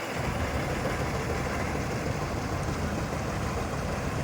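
John Deere combine harvester running steadily, a dense, even engine and machinery noise with no change in pitch.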